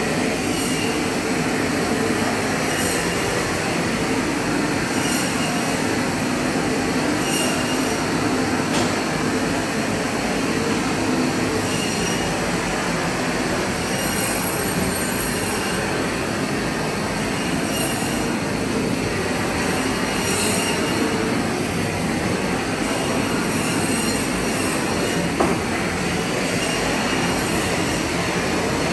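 Propane torch burning with a steady rushing noise as it singes the hair off a hog carcass, with a water hose spraying alongside.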